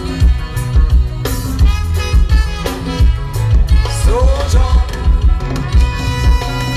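Loud music with a heavy, pulsing bass beat, played over a concert sound system at a sound check; a sung line glides about four seconds in.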